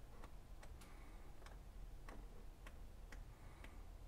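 Faint, unevenly spaced clicks, about two or three a second, as sheets of green cardstock flick one by one off a thumb while a stack is fanned through.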